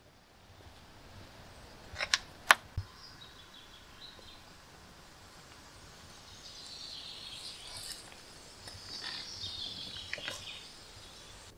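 A few sharp clicks about two seconds in. Then a car tyre rolls slowly over two bars of soap on asphalt, squashing them flat with a soft gritty crackling.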